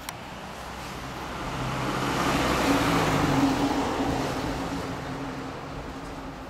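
A road vehicle passes at a steady speed. Its engine note holds one pitch while its tyre and road noise grow louder to a peak about three seconds in and then fade.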